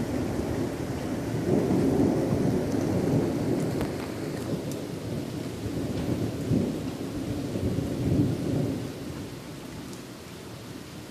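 Rolling thunder rumbling low and long, swelling about two seconds in and again near eight seconds before fading away, over steady rain.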